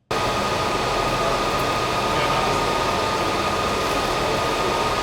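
Loud, steady hiss and rush of welding-shop work, with a thin steady high whine over it, cutting in abruptly.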